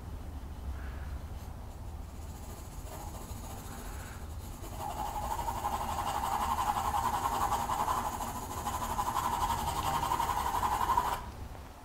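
Pencil graphite scratching on drawing paper in quick hatching strokes, getting louder about five seconds in and stopping abruptly near the end.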